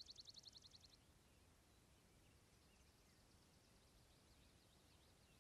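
Near silence with faint birdsong: a rapid high trill that stops about a second in, then a few scattered faint chirps.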